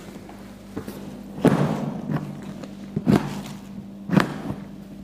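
Hard plastic rifle case being unlatched and handled: three sharp plastic knocks, the last two about a second apart.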